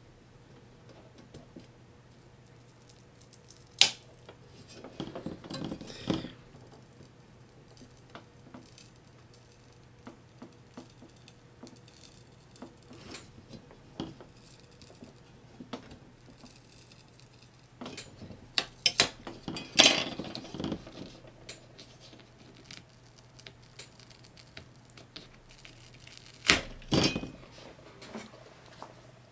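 Small plastic pieces being prised and pulled by hand off a DJM-400 mixer's metal top plate: scattered light clicks and knocks, with short bursts of clatter a few seconds in, about two-thirds through and near the end. A faint steady low hum sits underneath.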